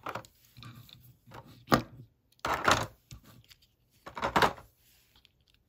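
Clear plastic blister packaging crackling and rubbing as a die-cast toy car is taken out of it. The noise comes in several short bursts, the loudest about two and a half and four and a half seconds in.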